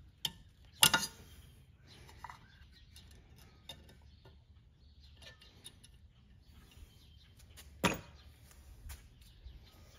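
Needle-nose pliers working a cotter pin through the propeller nut on a sterndrive's prop shaft and bending it over to lock the nut: a few sharp metal clicks, the loudest about a second in and another near the end, with faint ticks between.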